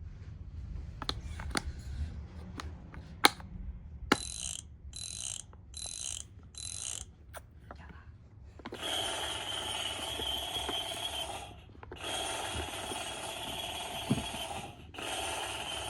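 Electronic tool sound effects from a toddler's construction-tools peg puzzle: four short bursts in quick succession, then three long, noisy, mechanical-sounding stretches in the second half. Before them come several sharp clicks of the pieces being handled.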